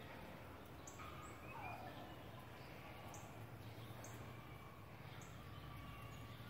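Faint outdoor ambience with a few soft, high animal calls, one a short chirp-like call about one and a half seconds in.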